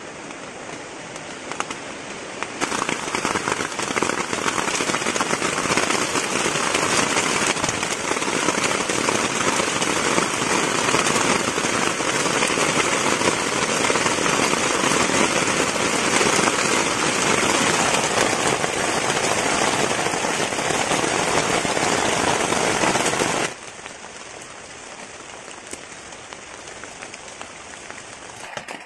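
Heavy rain falling, a dense steady hiss of drops. About 23 seconds in it drops suddenly to a quieter steady rain.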